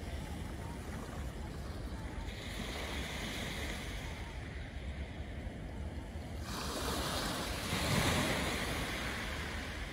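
Small waves washing onto the beach at the water's edge, one larger wave swelling about two-thirds of the way in and breaking near the end, with a low wind rumble on the microphone.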